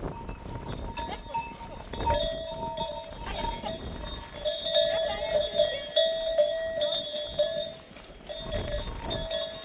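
Livestock bells ringing and clinking irregularly as a herd moves.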